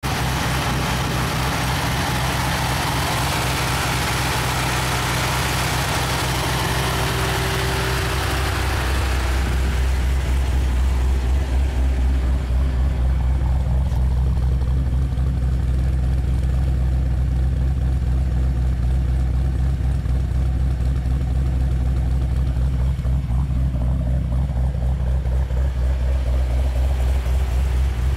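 2010 Camaro's V8, with a Magnacharger TVS 2300 supercharger, a stage 2 cam and Doug Thorley mid-length headers and exhaust, idling steadily without revving. For the first nine seconds or so it is heard at the open engine bay with a hiss over it. After that it is heard at the tailpipe, deeper and slightly pulsing.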